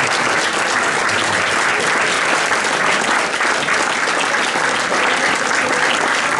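Audience applauding: many hands clapping steadily together.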